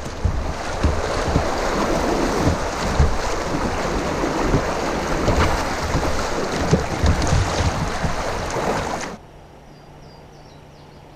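Rushing water of creek rapids around a kayak, with wind buffeting the microphone in gusty low rumbles. It cuts off suddenly about nine seconds in, leaving a faint steady hum and a few faint chirps near the end.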